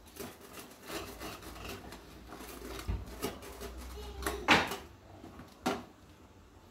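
Wheel-type sandwich cutter rolled back and forth through crisp grilled bread on a plastic cutting board, giving a run of crunchy, rasping crackles. Two sharp knocks follow in the last two seconds, the first the loudest.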